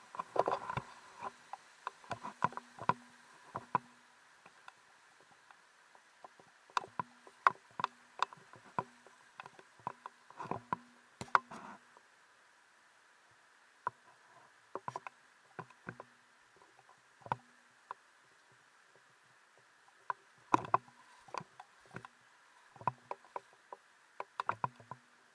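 Footsteps and knocks of someone clambering over stream boulders: irregular sharp clicks and thuds in clusters, with a few quiet pauses. A faint steady hiss runs behind them.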